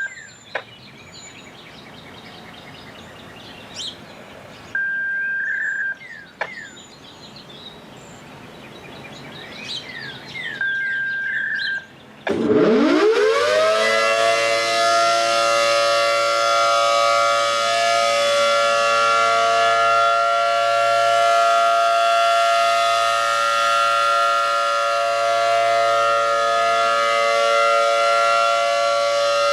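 A mobile siren sounding a test alert. Birds chirp and two steady high beeps of about a second each sound first. About twelve seconds in, the siren winds up fast from a low pitch to a steady wail of several tones at once and holds it.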